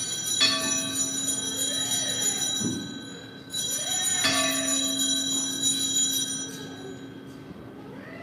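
Altar bell rung at the elevation during the consecration of the Mass, struck twice about four seconds apart. Each strike rings on with several steady tones that fade away.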